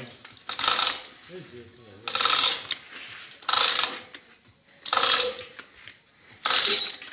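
A ratchet mechanism worked in five short rasping strokes, about one every second and a half, during work on the engine removal.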